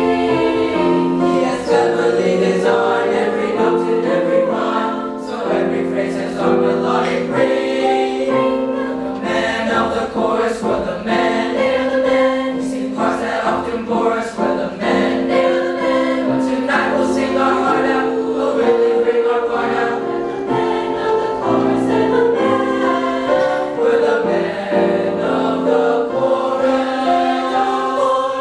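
Middle school chamber choir singing in harmony, holding chords that change every second or so.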